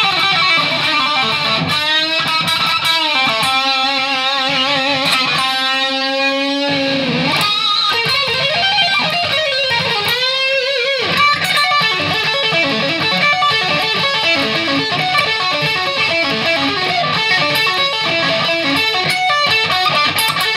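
Electric guitar fitted with a Seymour Duncan JB humbucker, played solo: long held notes with wide vibrato and bends, then from about halfway quick, busy runs of short picked notes.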